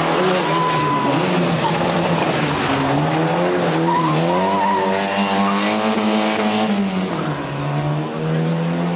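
Rally car engine revving hard through a tight corner, its pitch rising and falling with throttle and gear changes, with tyres squealing briefly on the tarmac.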